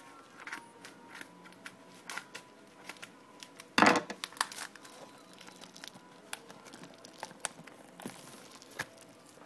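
Packaging being opened by hand: scattered crinkling and rustling of paper and plastic wrapping, with a brief loud tearing rustle about four seconds in.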